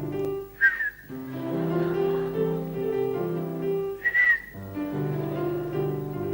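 Instrumental accompaniment playing steady held notes, cut into twice by a short, sharp human whistle that dips in pitch, once about half a second in and again about four seconds in.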